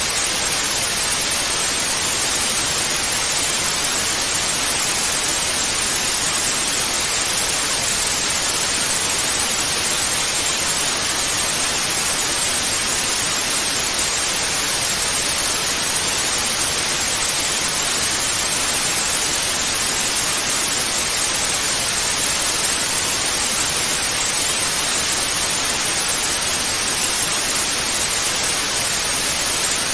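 Analogue TV static: a steady, even hiss of white noise, unchanging throughout, brightest in the upper-middle range.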